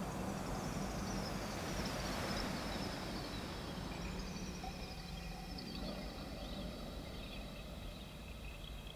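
Ambient electronic soundscape: a steady low hum under a hiss, with thin high tones that glide slowly downward and settle into a few held high notes.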